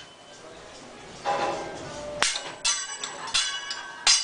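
Hibachi chef's metal spatula and fork clanging against each other and the steel griddle: several sharp, ringing metal strikes in the second half, the loudest near the end, after a short rush of noise a little over a second in.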